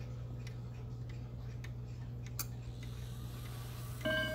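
Howard Miller 'Jennison' triple-chime wall clock ticking about twice a second, with one sharper click midway. About four seconds in, its chime rods strike the first ringing notes of the quarter-hour chime.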